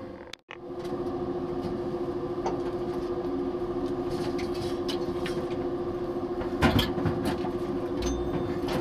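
Steady hum of the space station's ventilation fans and equipment, with one constant tone, starting just after a split-second dropout. About two-thirds of the way in, a brief rustle and knock as a crew member moves through the cargo ship's hatchway.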